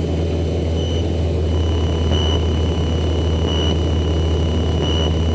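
Single-engine propeller aircraft's engine and propeller running steadily in flight, heard from inside the cockpit as a loud, even low hum. A faint high tone above it brightens about every second and a half.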